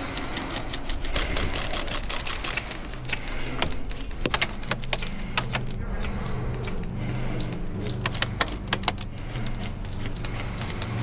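Airsoft guns firing: sharp, irregular clicks of single shots and quick strings, over a steady low wind rumble on the microphone.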